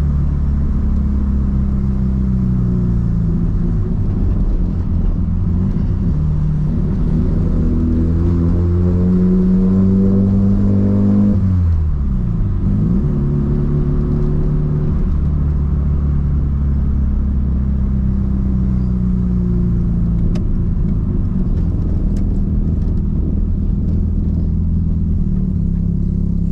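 Streetported 13B two-rotor rotary engine of a Mazda RX-7 FD3S with a single turbo and straight-pipe exhaust, driving at a steady cruise. It then pulls with its pitch climbing for several seconds, the revs drop sharply and swing back about halfway through, and it settles into a steady drone again.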